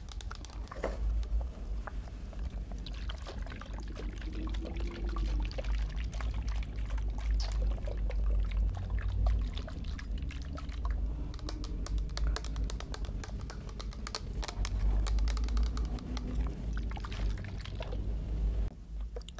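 Water pouring and splashing close to the microphone, with many small clicks.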